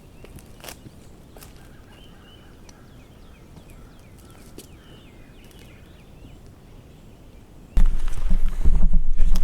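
A quiet woodland background with a few scattered footstep crackles in leaf litter and faint, short songbird chirps. Near the end a sudden loud, low rumble of buffeting on the microphone takes over.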